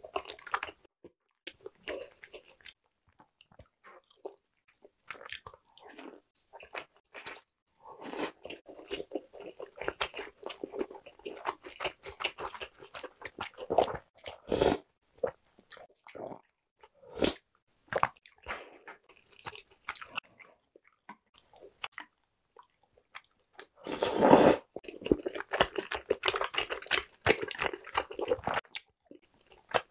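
Close-up chewing and biting of a mouthful of egg tteokbokki, with wet mouth clicks and soft crunches. One louder noise, about half a second long, comes about 24 seconds in.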